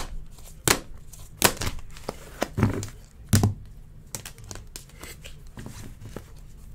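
Trading cards and hard plastic card holders handled on a tabletop: about five sharp plastic clacks in the first three and a half seconds, then lighter ticks and rustling as the cards are shuffled and squared into a stack.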